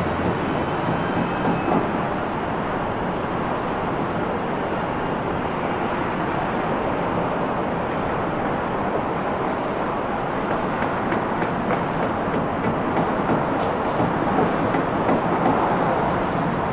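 Jet engines of an Airbus A330 airliner rolling along a wet runway: a steady, even rumbling rush with no clear tone, holding at the same loudness throughout.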